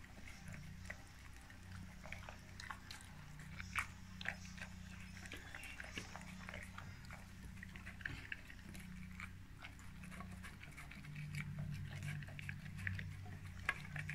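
Labrador-mix dog eating from a stainless steel bowl: quiet chewing and licking with many small irregular clicks. A faint, steady low hum runs underneath.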